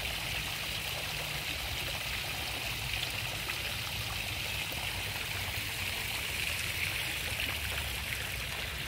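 Small garden fountain jets splashing, a steady hiss of falling water with no pauses.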